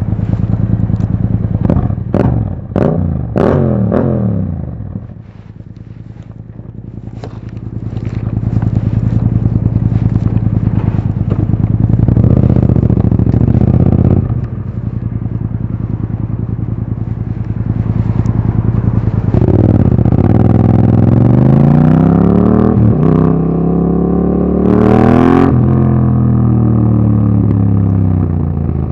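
Yamaha MT-07 parallel-twin engine through an Akrapovic Racing Line exhaust with its dB killer fitted. It is blipped with sharp crackles in the first few seconds, eases off, then runs steadily. In the second half it pulls hard, revs rising and dropping back with each gear.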